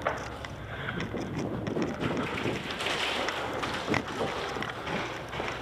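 Rustling and handling noise from a player moving with gear, with a few scattered sharp knocks.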